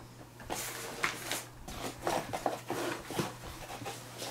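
Gear being handled and a nylon backpack pocket being rummaged: irregular rustles, scrapes and light knocks, over a steady low hum.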